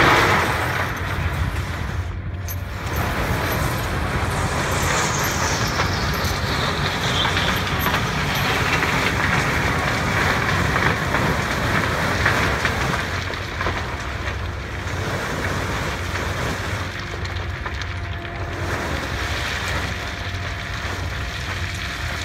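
Trimming grab on a crane biting into a pile of coarse quartz lumps and closing through it: a loud burst as it meets the pile at the start, then a steady noise of shifting stone over a low rumble. A falling whine comes a few seconds in.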